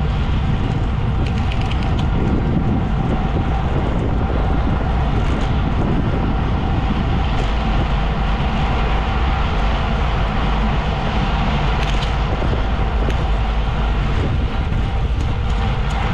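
Steady engine rumble and wind noise of a moving vehicle, heard on board at a constant cruising speed.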